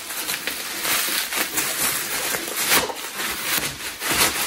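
Plastic bubble wrap rustling and crinkling as it is handled and pulled off a laptop, with irregular crackles throughout.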